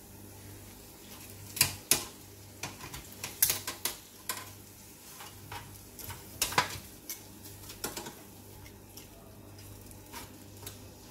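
Kitchen tongs clicking and knocking against an air fryer basket as pieces of hot air-fried chicken are turned over, in irregular separate clicks. A low steady hum runs underneath.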